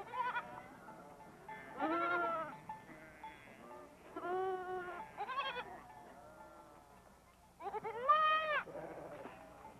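Sheep and goats of a grazing flock bleating: several separate bleats, each rising and falling in pitch, the loudest about eight seconds in.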